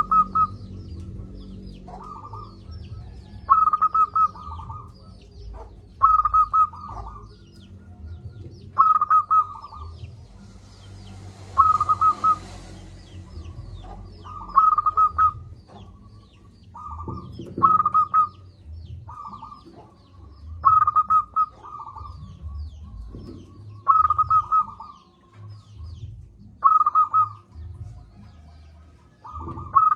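Zebra dove (perkutut) cooing: short phrases of quick, staccato notes repeated every two to three seconds. Faint high chirps from small birds are heard behind them.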